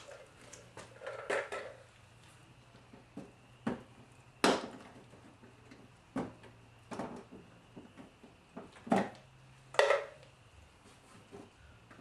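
Irregular clicks and knocks of hands and tools handling plastic fasteners and trim, about ten over the span, with a faint steady hum underneath.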